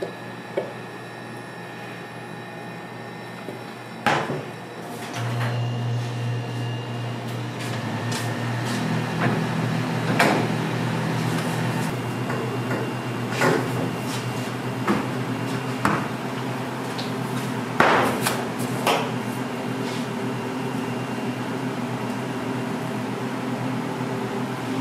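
Kitchen work sounds: an appliance starts humming about four or five seconds in and runs steadily, with scattered sharp knocks and clinks of utensils and containers on top.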